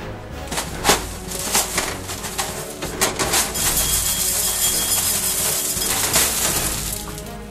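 Crunchy Nut cereal flakes pouring from the box into a ceramic bowl and spilling across a stainless steel draining board, a dense rattling rush from about halfway through that lasts a couple of seconds, with scattered clicks before it.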